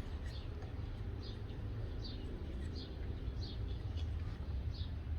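A bird chirping over and over, short high falling notes about one every second or less, over a steady low rumble.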